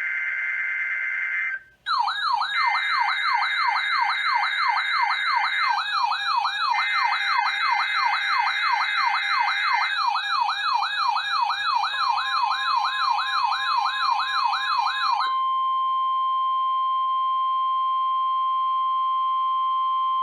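Emergency Alert System tones on NOAA Weather Radio announcing a new alert, a Flood Watch. Three bursts of harsh, buzzing SAME header data tones, separated by short gaps, come first. A loud warbling siren-style alarm, rising and falling a few times a second, runs over them. Then a single steady warning tone plays for about eight seconds and cuts off.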